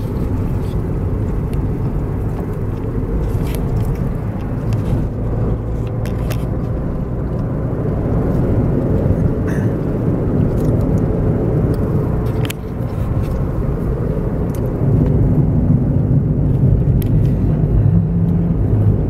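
Inside the cabin of a moving small car: steady low engine and road rumble, growing louder about fifteen seconds in.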